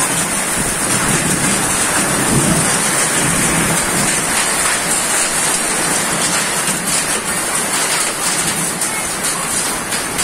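Heavy rain pouring steadily onto waterlogged ground, a dense unbroken hiss, with a low rumble in the first few seconds.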